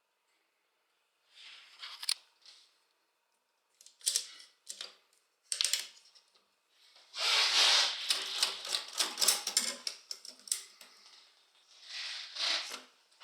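Underwood Noiseless typewriter being worked by hand: scattered clicks and rustles, with a longer, denser run of mechanical noise about seven to ten seconds in.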